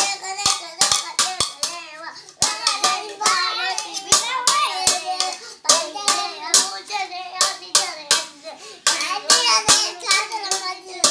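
Stainless steel plates and lids clashed together by hand like bhajan cymbals, in a quick, irregular beat of sharp metallic strikes, with young children's voices singing along.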